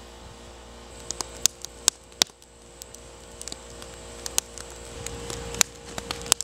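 Split-log wood fire crackling, with irregular sharp pops over a low steady background.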